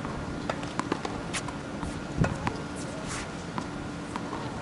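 Sounds of a hard tennis court between points: scattered light taps and knocks, a slightly heavier one about two seconds in, over a faint steady hum.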